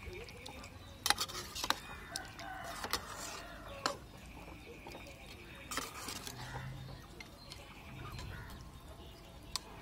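Chickens clucking faintly, with a few sharp clinks of a metal slotted spoon against an aluminium kadai as a curry is stirred.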